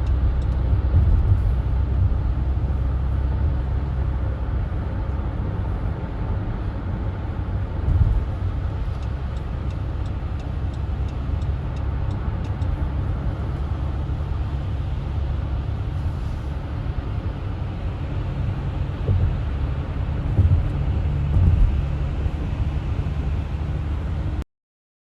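A car driving on the highway: steady low road and engine rumble, with faint light clicks at times. The sound cuts off suddenly near the end.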